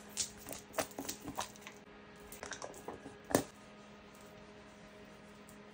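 Small clicks, taps and squishy rustles of hands handling a plastic skincare product close to the microphone, with one sharper click about three and a half seconds in. After that only a faint steady hum remains.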